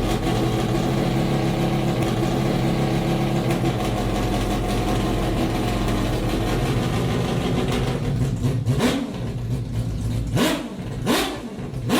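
Mazda 787B's R26B quad-rotor Wankel engine running with a steady, buzzing multi-tone note, then revving in three short sharp rises in pitch over the last few seconds.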